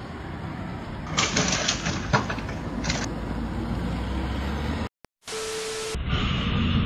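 Steady road and engine noise from inside a moving car, with a burst of clattering knocks for about two seconds starting a second in. The sound cuts out briefly near the end and a different recording with a steady hum follows.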